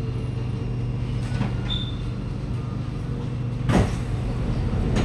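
Steady low hum inside a Kawasaki Nippon Sharyo C751B metro car, with a short high beep about one and a half seconds in and a sudden loud burst of noise nearly four seconds in.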